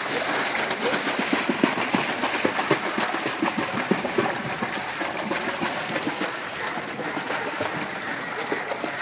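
Pool water splashing from a swimmer's front crawl: the flutter kick and arm strokes churn the surface in quick, uneven splashes, busiest in the first few seconds and settling into a steadier wash later.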